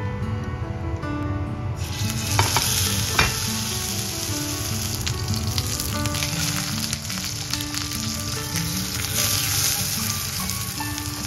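Tied pork belly roll searing in hot oil in a frying pan: a loud, steady sizzle breaks out about two seconds in and keeps going. Two sharp knocks come just after it starts.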